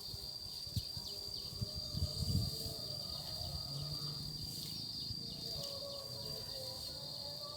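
Insects trilling steadily in one high, unbroken tone. A few dull low thuds come in the first couple of seconds.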